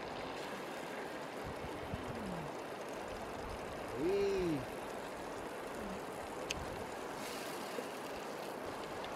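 Steady rush of river water flowing over stones. A short hummed voice sound comes about four seconds in, and a single light click later.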